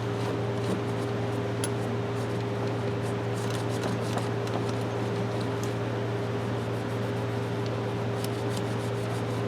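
Steady electric motor hum, with faint light ticks and rubbing as polishing compound is wiped off the wrenches.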